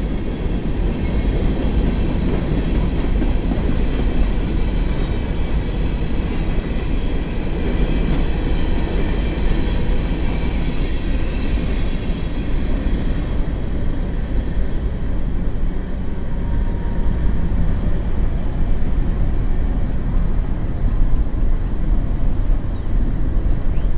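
Empty steel coal hopper cars rolling past on the track: a steady rumble and clatter of wheels on rail, with faint high wheel squeals in the first half. The last car goes by about halfway through, and the rumble carries on at the same level as the train moves away.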